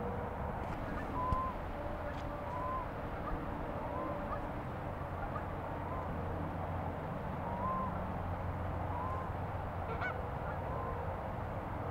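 Geese honking, a short call repeated roughly once a second, over a steady background noise.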